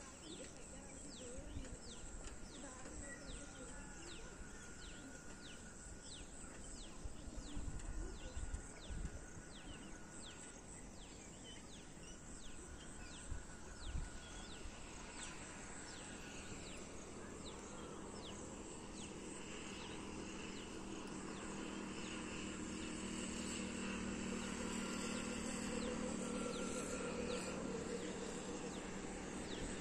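Rural outdoor ambience: a bird calls over and over with short, high, downward chirps about twice a second, with a few low rumbles in the first half. From about halfway a steady low hum slowly grows louder.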